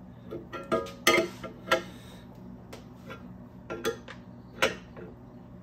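Steel combination wrench clinking against the nuts and threaded rods of a homemade spreader on a differential housing as the nuts are turned: a handful of separate sharp metal clinks, the loudest about a second in.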